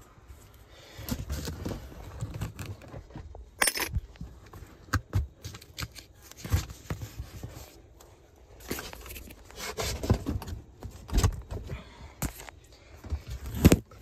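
Cardboard being handled and bumped: scraping and rustling with irregular sharp knocks and clicks, a louder knock near the end.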